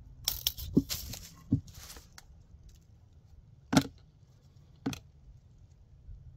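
Handling noises: a steel tape measure clattering as it retracts and snaps shut, then two sharp knocks as wood is set down against a wooden beam. The mini chainsaw is not running.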